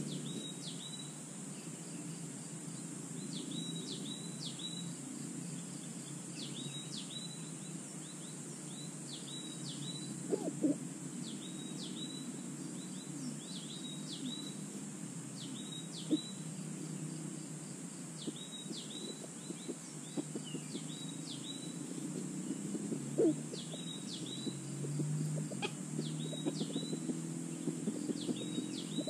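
Forest ambience: a steady high insect drone under a small bird repeating short high chirps in clusters of two or three every couple of seconds. There are a few faint clicks or rustles in the leaf litter.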